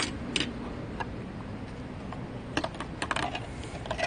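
Scattered sharp clicks and taps, irregular rather than a walking rhythm: a few near the start, a quick cluster about two and a half to three seconds in, and one more near the end, over a steady low outdoor background.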